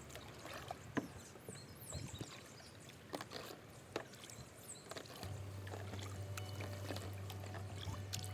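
Kayak paddling on a river: the paddle dips and water drips and splashes in scattered sharp little splashes. A low steady hum comes in about five seconds in.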